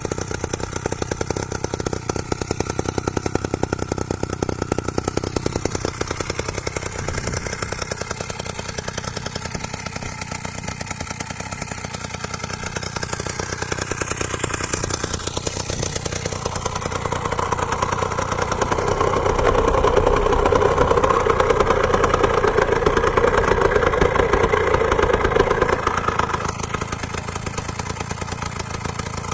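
Small two-stroke chainsaw engine driving a homemade moped, running steadily with a rapid firing buzz, then louder with a stronger hum for several seconds about two-thirds of the way in before settling back.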